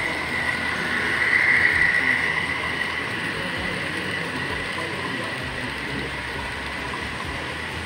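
Model trains running on a model railway layout: a steady rumble of wheels on track with a motor whine, loudest about one to two seconds in, then easing off.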